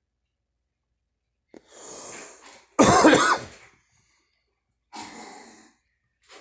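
A girl coughing: three coughs after a short silence, the middle one, about three seconds in, much the loudest.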